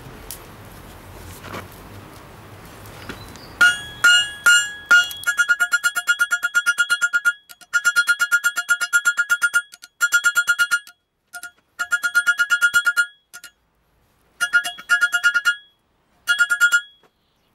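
Hand hammer striking a hot steel bar on an anvil in fast runs of blows. Each blow gives a bright metallic ring, and the runs are broken by short, abrupt gaps. The hammering starts about four seconds in.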